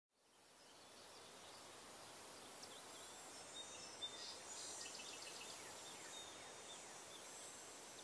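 Faint meadow ambience fading in: a high steady insect buzz that breaks off twice and comes back, with small birds chirping in quick short calls in the middle, over a soft hiss.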